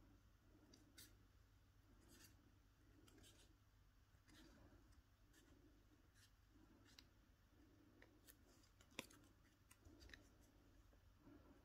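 Faint, short snips of small scissors cutting a thin foamiran foam sheet, about one cut a second, with one sharper snip late on.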